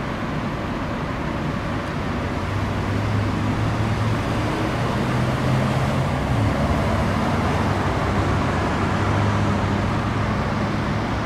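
Fire truck diesel engines running: a steady low engine drone over a rumble, coming up about two seconds in and dropping slightly in pitch around six seconds in.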